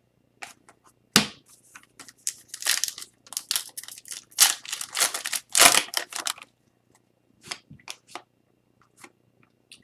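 Trading cards handled and flicked through by hand: a run of rustling and sharp card snaps that thins to a few scattered ticks in the last few seconds.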